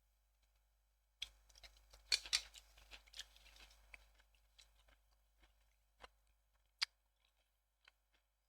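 A quick run of sharp clicks with a light rustle starting about a second in and lasting a few seconds, then single clicks spaced about a second apart.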